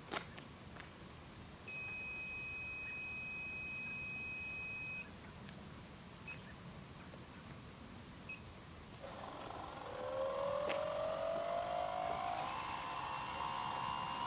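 A click, then a steady electronic beep lasting about three seconds and two short beeps. About nine seconds in, the HK X900 tricopter's brushless motors spin up: a whine rises in pitch and then holds steady while the craft is still on the ground.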